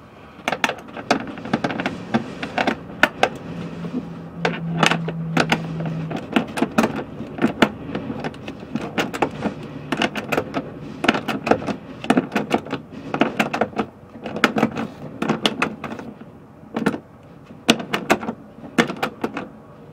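Half-inch ratcheting wrench clicking in quick runs with short pauses as a toilet's mounting nut is snugged down onto its floor-flange bolt.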